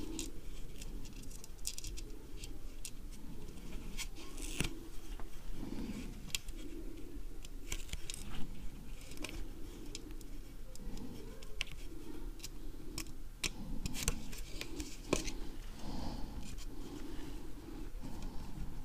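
Irregular light clicks and scrapes of a small screwdriver and tiny screws being worked into the plastic shell of a DJI Phantom 3 drone, over soft handling rubs.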